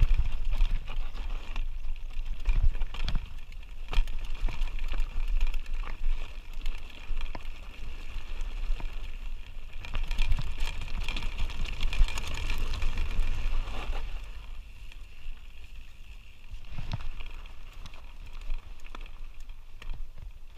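Canyon Spectral full-suspension mountain bike rolling down rocky singletrack: steady wind rumble on the bike-mounted microphone, tyres crunching over stones and many small rattles and knocks from the bike. It is quieter for the last few seconds.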